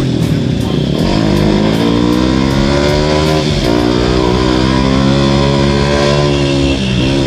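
Motorcycle engine pulling under acceleration, its pitch climbing steadily and dropping briefly three times as it shifts up through the gears.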